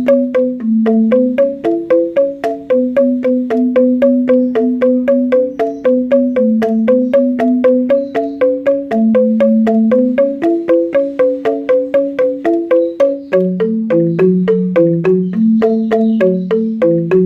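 Background music: a quick, even run of struck mallet-instrument notes in a repeating melody, over lower held notes.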